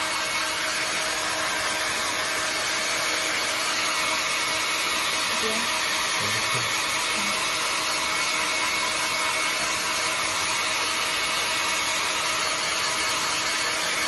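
Small handheld hair dryer running steadily on a wet dog's coat: an even blowing noise with a faint constant hum.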